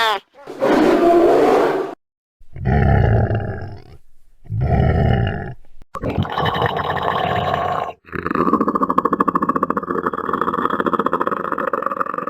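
Monster growl sound effects: a short raspy roar, two shorter growls, then a long rough rasping growl from about eight seconds in.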